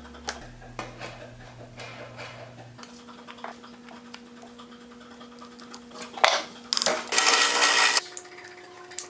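Light clicks and taps of small plywood parts, a wooden dowel and a metal pulley being handled and fitted together. About seven seconds in there is a loud rasping burst lasting about a second, as a hand screwdriver drives a small screw into the plywood motor mount.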